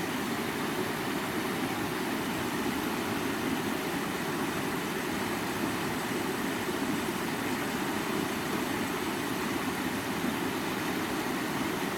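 Stream water running in a steady, even rush.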